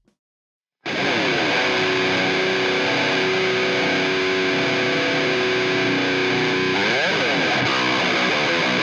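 ESP Snapper-7 seven-string electric guitar played through a heavily distorted Kemper amp profile: it comes in sharply about a second in with sustained held notes, and near the end the pitch swoops down and back up.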